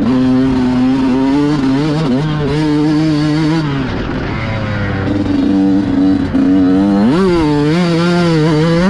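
Yamaha motocross bike's engine under load on a dirt track. The engine pitch holds steady, drops around four seconds in as the throttle eases, then climbs again about seven seconds in as it revs back up.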